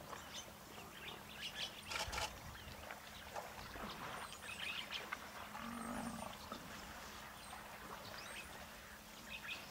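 Baby African savanna elephant scuffing and kicking at loose dirt with its feet: scattered scrapes and soft thuds, loudest about two seconds in. Faint bird chirps sound in the background.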